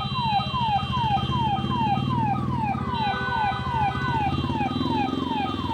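Police vehicle sirens sounding a rapid falling wail that repeats about two or three times a second. A second siren, out of step with the first, joins about three seconds in. Steady engine and traffic rumble runs underneath.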